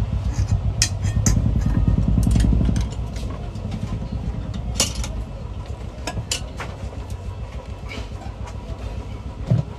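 A motor vehicle's low engine rumble, strongest for about the first three seconds and then fading. Over it come scattered sharp clicks and taps from hand tools working metal pan parts.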